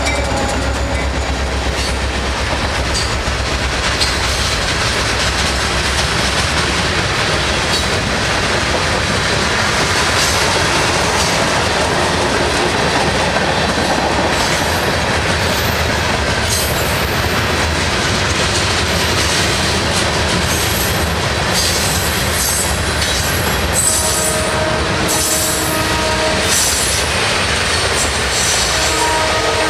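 Freight train of hopper and covered hopper cars rolling past at close range, steel wheels clattering on the rails. High-pitched wheel squeals come and go through the second half.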